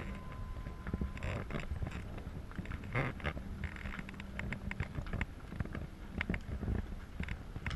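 Outdoor crowd noise from a large gathering moving about, with many scattered short clicks and knocks over a steady low hum.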